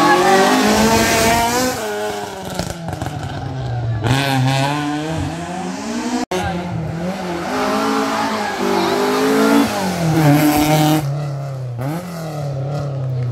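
Rally car engine revving hard on a hill climb. The pitch climbs under acceleration and falls away at each gear change or lift, several times over, with a very short dropout about six seconds in.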